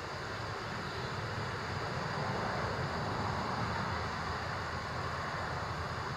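Highway traffic passing close by: a rushing tyre-and-engine noise that swells to a peak about halfway through and then eases off as a vehicle goes past.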